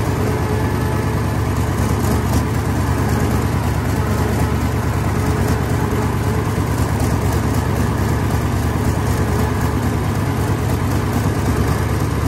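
Hino F21C V8 diesel engine of a paddy-field puddling tractor running steadily at an even speed.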